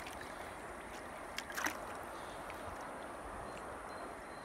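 Shallow stream water running steadily, with a brief splash about a second and a half in as a trout moves in a landing net held in the water.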